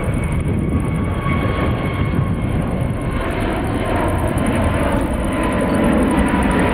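Airbus A350-900's Rolls-Royce Trent XWB turbofans at climb power after takeoff: a steady rushing jet noise with a faint high whine, getting a little louder near the end.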